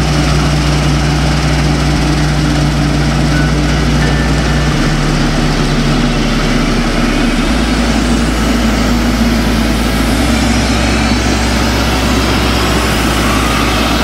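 Laverda AL Quattro Evo combine harvester working through a wheat crop: a steady, loud run of engine and threshing noise.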